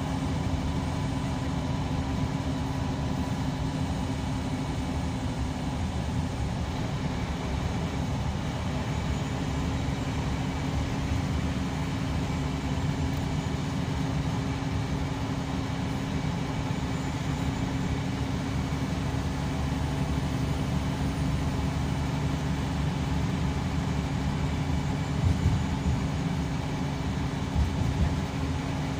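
Scania K340EB coach with Irizar PB body under way, heard from inside the passenger cabin: a steady engine drone with road rumble. A few brief knocks near the end.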